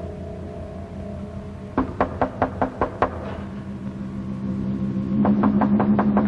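Two runs of rapid knocking, about five knocks a second: about seven knocks some two seconds in, then a second run near the end over a low steady tone.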